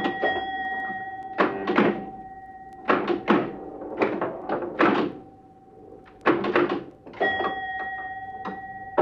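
Vintage pinball machine in play: clusters of sharp mechanical thunks and clacks every second or so. Over them a bell chime rings and hangs on, fading out, then is struck again about seven seconds in.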